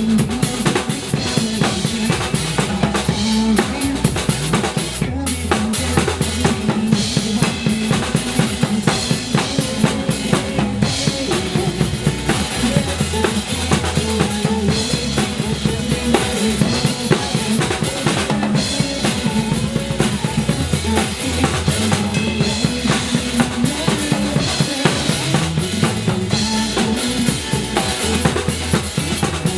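A drum kit played continuously with kick and snare, in dense, unbroken strikes, along to a recorded pop song with a steady bass line.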